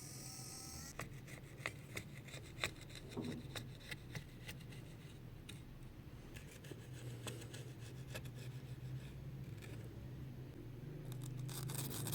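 Small tools handling a phone during disassembly: scattered light clicks and scrapes, then a fast run of scraping strokes near the end. A low steady hum runs underneath.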